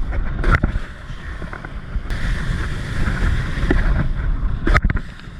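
Wind buffeting the microphone over the rush of water as a wakeboard skims along behind a cable tow. Two sharp knocks come about half a second in and near the end.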